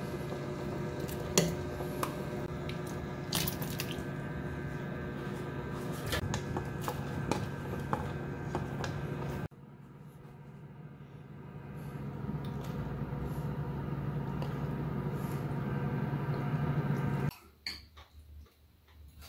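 Soup boiling in a stainless steel pot on an induction hob, a steady hum with the ladle clinking against the pot now and then as bean paste is stirred in. After a cut about halfway through, the full pot of pumpkin and cabbage bubbles, growing louder. Near the end, a few clicks of spoons and chopsticks on bowls.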